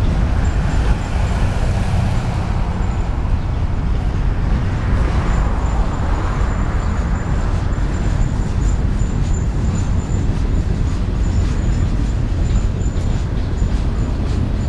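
Freight train rolling steadily past, a continuous low rumble of steel wheels on rail, with a thin high whine coming and going over it.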